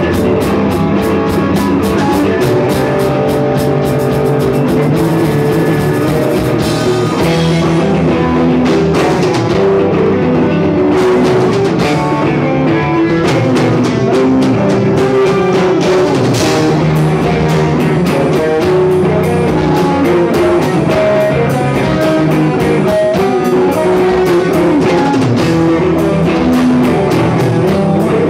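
Rock music played by a band: guitar and drum kit going steadily and loud, with no break.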